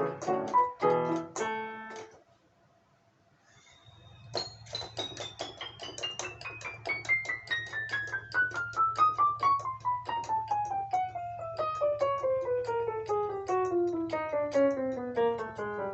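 Alesis Recital 88-key digital piano played in its piano sound: a few notes and chords, a pause of about two seconds, then a long, even run of quick notes descending steadily from the top of the keyboard toward the bass over a held low note.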